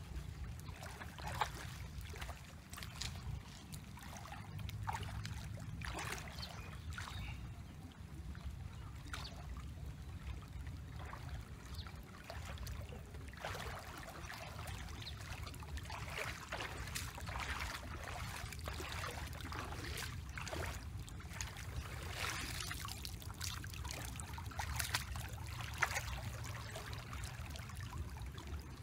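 Shallow muddy water splashing and sloshing in irregular bursts as a person wades and works a woven bamboo scoop basket through it, over a steady low rumble.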